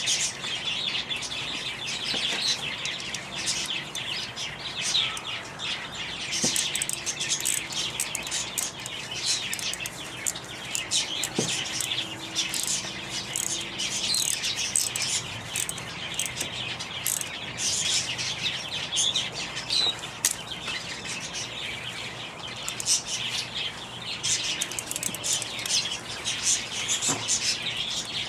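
A dense chorus of small birds chirping continuously, with a few faint clicks.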